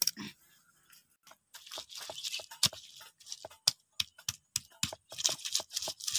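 Stone pestle crushing and grinding shallots and turmeric in a stone mortar: irregular crunching strokes with gritty scraping, busier from about a second and a half in.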